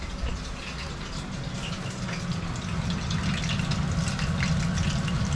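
Vegetable fritters deep-frying in a pot of oil: a steady sizzle full of small crackles over a low rumble, growing louder about halfway through.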